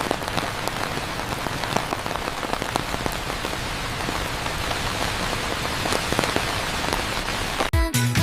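Steady rain falling on hard surfaces, a dense patter of individual drops. Music starts up again near the end.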